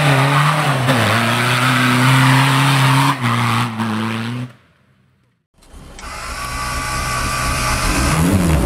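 Off-road vehicle engine held at high revs while its wheels spin in mud. About four and a half seconds in the sound cuts off abruptly for about a second, then engine noise fades back in and builds.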